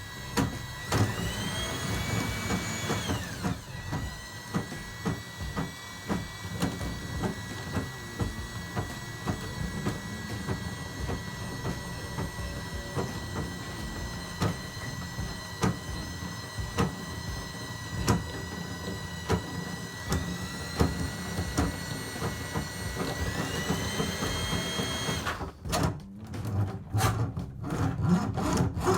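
Motorized drain-cleaning machine running a cable down a clogged tub and kitchen drain line. The motor speeds up about a second in, slows a couple of seconds later, and speeds up again near the end, with frequent clicks and knocks from the cable working in the pipe.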